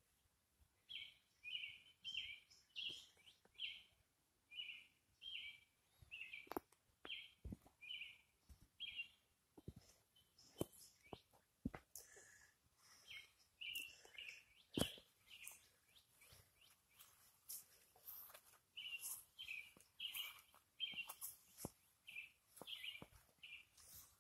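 A bird calls faintly in runs of short, repeated chirps, about two a second, that stop and start again several times. A few sharp clicks come in between.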